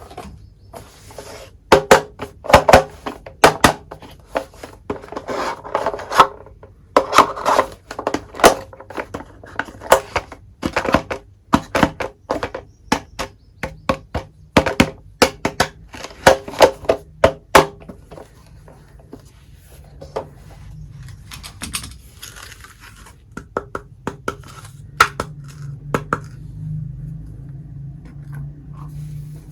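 Miniature toy kitchen pieces clinking and knocking as they are picked up and set down, a rapid run of small taps with a short ring, thinning out to scattered clicks in the second half.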